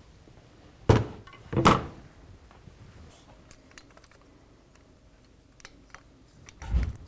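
Two sharp metal clicks about a second in, then a duller thump near the end, with a few light ticks between: a Harley-Davidson Twin Cam pushrod tube and its retaining clip being worked loose by hand.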